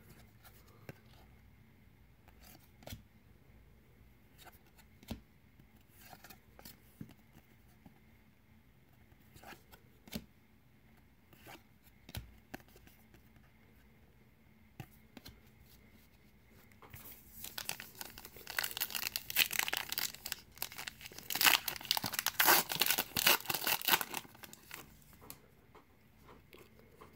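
Light clicks and rustles of trading cards being handled, then about 17 seconds in, several seconds of loud crinkling and tearing as the wrapper of a 2019 Donruss baseball card pack is torn open.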